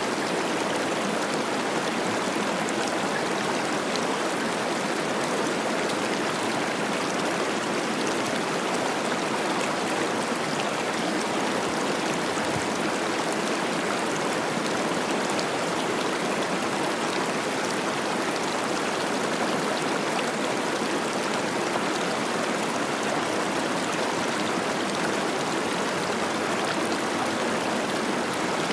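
The Cache la Poudre River running high with spring snowmelt: a steady rush of babbling, splashing water with no change from start to end.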